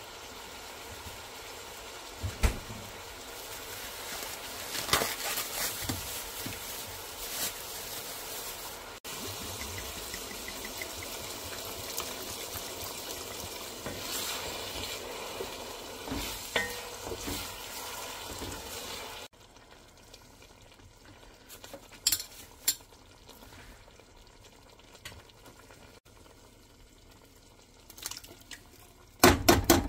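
Ground sausage and beef sizzling as they brown in a stainless steel pot, stirred and scraped with a wooden spoon. Late on the sizzle drops away to a few scattered knocks, and near the end there is loud clatter as canned tomatoes are tipped into the pot.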